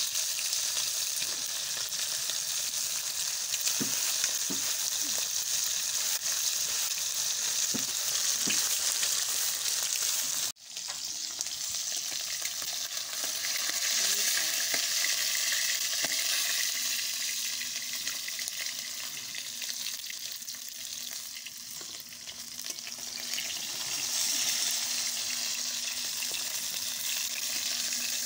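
Round snacks deep-frying in hot oil in a metal kadai, a steady sizzle, with a long metal slotted spoon stirring and turning them. The sizzle cuts off abruptly for a moment about ten seconds in.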